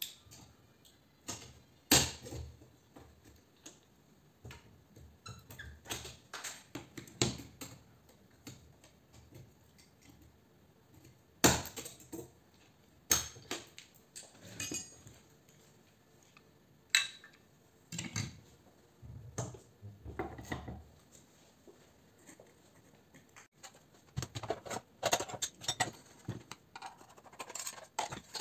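Irregular metallic clinks, knocks and scraping of hand tools and metal parts as light fittings are taken apart on a workbench, with a few sharp clicks standing out.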